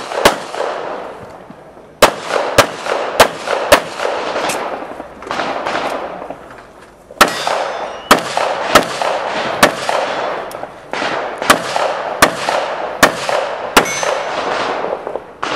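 Pistol shots in quick strings, each with an echo tail: a run of about five shots, a pause of a couple of seconds, then a longer run spaced roughly a second or less apart. One shot near the end is followed by a short thin ringing tone.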